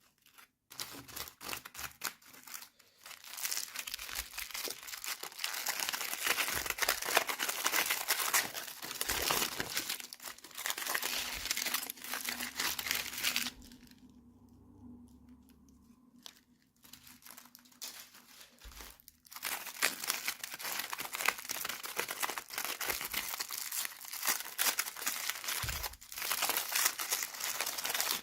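Toy packaging being crinkled and torn open by hand, in dense crackling stretches with a quieter pause of about five seconds around the middle.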